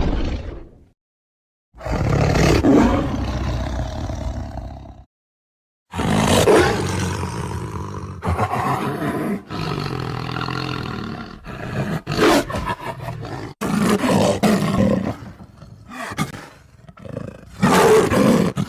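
A tiger roaring and growling in a run of about five roars, each starting and stopping abruptly. Two short silent gaps split the first three roars; the later ones come closer together.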